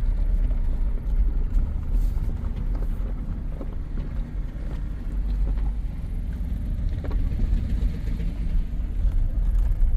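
Off-road 4x4 driving over a rough dirt road: a steady low rumble of engine and tyres, with a few faint knocks from the rough ground.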